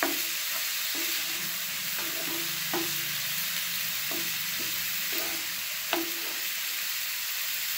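Chopped vegetables sizzling steadily in a hot frying pan, stirred with a wooden spatula that scrapes and knocks against the pan about once a second.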